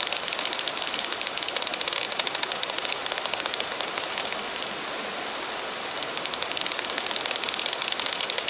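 Daubenton's bat echolocation calls heard through a heterodyne bat detector tuned to 35 kHz: rapid dry clicks over the detector's steady hiss. The click train thins out briefly about two-thirds of the way through, then picks up again.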